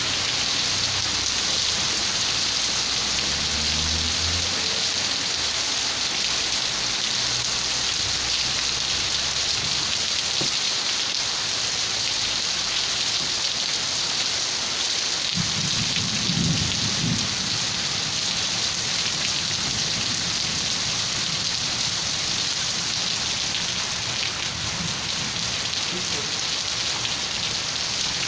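Steady rain falling, an even hiss throughout, with a low rumble of thunder about halfway through lasting a couple of seconds.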